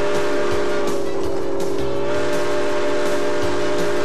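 Steam locomotive whistle held in one long, steady chord of several notes, its pitch wavering slightly, over the low rumble of the moving train.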